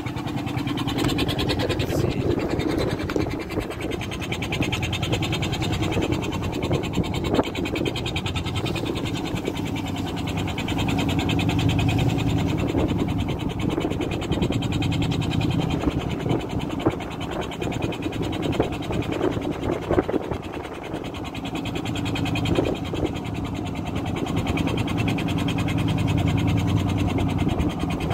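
A fishing boat's engine running steadily: a constant low hum with a fast, even beat.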